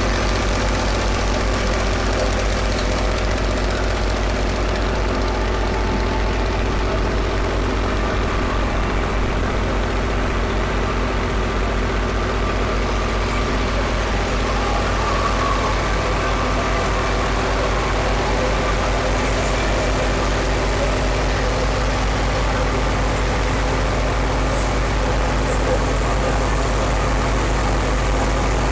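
Fiat 480 tractor's three-cylinder diesel engine running steadily under load as it drives a wheat thresher, with the thresher's drum and straw being fed in mixed with the engine.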